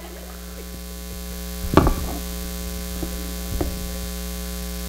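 Electrical mains hum buzzing steadily through the PA from an instrument cable pulled out of the keyboard, its loose plug still live, growing a little louder over the first second or so. A sharp knock comes about two seconds in, and two fainter knocks follow.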